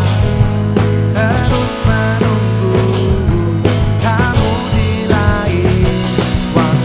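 A live band playing a pop-rock ballad: acoustic guitar, electric guitar, bass guitar, drums and keyboard.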